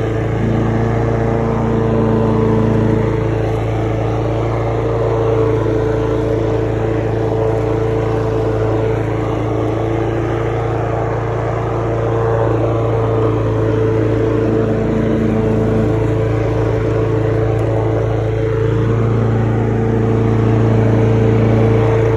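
Lawn mower engine running steadily at working speed while mowing.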